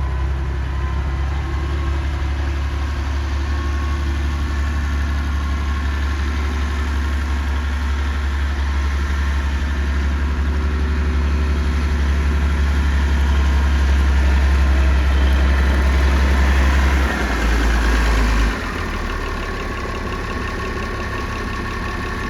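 Massey Ferguson 1100 tractor engine running steadily, then stepping down to a lower, quieter idle in two drops about three-quarters of the way through.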